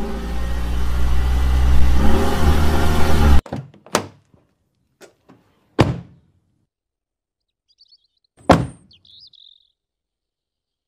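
A vehicle engine running and revving, louder toward the end, then cutting off abruptly about three and a half seconds in. It is followed by several sharp thunks over the next five seconds, with a faint bird chirp near the end.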